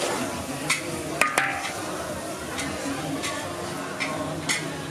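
Noodles frying in a hot wok with a steady sizzle, while a metal ladle and spatula clank and scrape against the wok several times; two sharp clanks about a second and a quarter in are the loudest.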